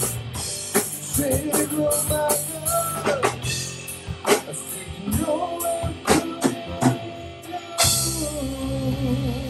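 Live band playing on electric guitar, electric bass and drum kit: a bending guitar line over scattered drum hits, then the full band comes back in with a cymbal crash near the end.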